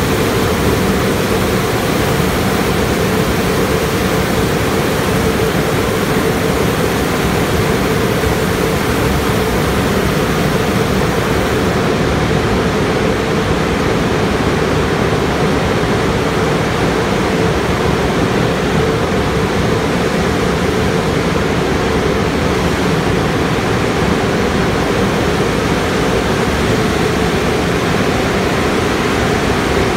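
Car wash tunnel equipment running: water spray and dryer blowers make a loud, steady rushing noise with a low hum underneath. The highest hiss eases about twelve seconds in.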